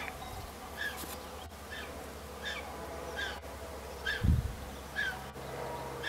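Eurasian griffon vulture chick begging for food with a short, high call repeated a little more than once a second. A low thump comes about four seconds in.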